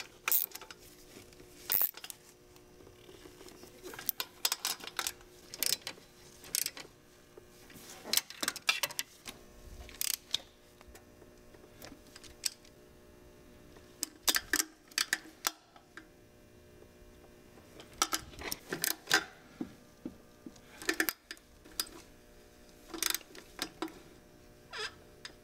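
Hand wrench tightening the upper intake manifold bolts on an aluminium intake manifold: short bursts of metallic clicks and clinks every one to three seconds.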